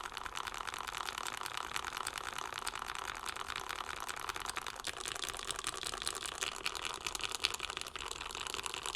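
Fast, continuous typing on a gasket-mounted Bauer 1 custom mechanical keyboard with an aluminium plate, Krytox-lubed Tealios V2 linear switches and GMK keycaps: a dense stream of key clacks, deeper than usual for a Tealios build.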